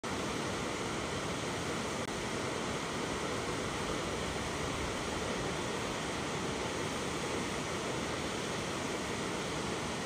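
Steady rushing of waterfalls, an even hiss of falling water with no break or change.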